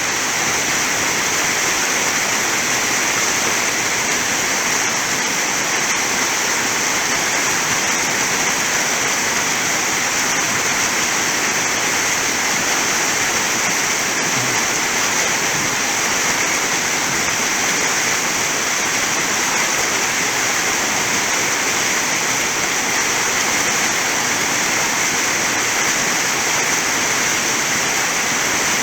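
Waterfall crashing down, a steady, dense rush of water that does not change.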